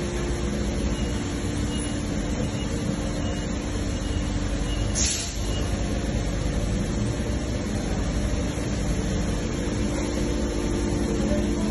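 Amada HD8025NT CNC press brake's hydraulic drive running, a steady machine hum with a constant tone, and a short hiss about five seconds in.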